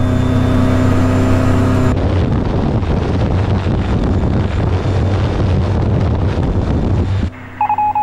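Self-launching glider climbing under engine power. It opens with a steady engine-and-propeller hum inside the cockpit. About two seconds in this changes to a loud rush of wind and propeller noise for about five seconds. Near the end the hum comes back with the variometer's quick beeps.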